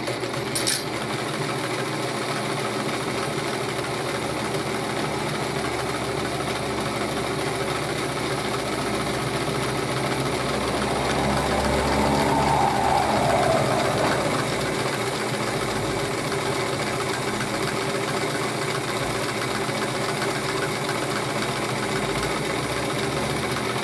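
Restored vintage Elgin sewing machine, driven by a Singer add-on motor and belt, running steadily while stitching through denim. It gets louder for a few seconds about halfway through.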